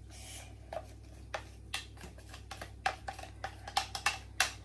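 Metal spoon tapping and scraping inside a plastic jug: a string of sharp, irregular clicks, sparse at first and coming faster in the second half.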